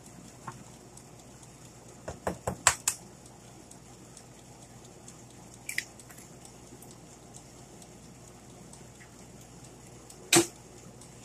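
Short sharp clicks and knocks of kitchen utensils and dishes: a quick run of four or five about two seconds in, a faint click near six seconds, and one louder knock near the end.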